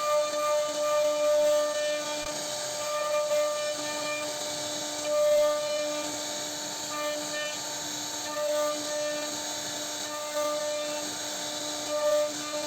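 CNC router spindle running with a steady whine while its bit cuts wood, the cutting noise swelling briefly several times.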